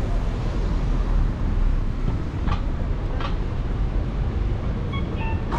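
City street noise: a steady low rumble, with a car passing close by as it starts. Two short clicks sound near the middle.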